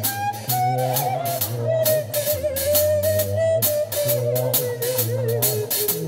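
Background music: a drum kit keeps a steady beat under a bass line and a held, wavering lead melody.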